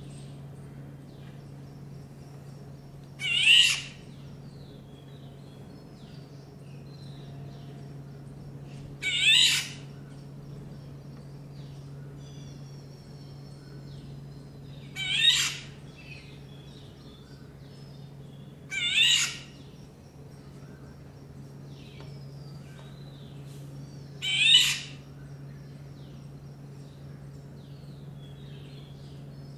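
Female golden oriole giving a harsh call five times, each about half a second long, every four to six seconds.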